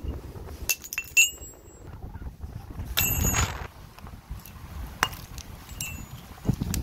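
Hard objects clinking sharply several times, each strike leaving a short ringing tone, over low rumbling handling or wind noise.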